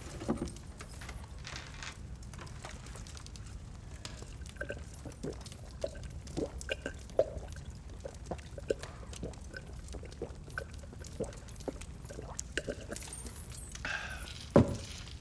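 A man gulping a drink from a tankard: a run of irregular swallows over a low, steady room hum. A single loud thump comes near the end.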